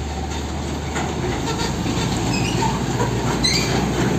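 Isuzu Giga tractor-trailer fuel tanker driving past on the road: a steady heavy diesel-engine and tyre rumble with a low hum underneath, growing a little louder about a second in. A few faint high chirps sit over it.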